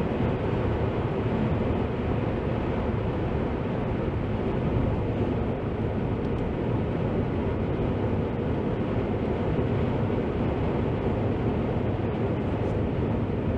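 Steady tyre, engine and wind noise inside a car's cabin while it drives on a motorway, with an even low rumble.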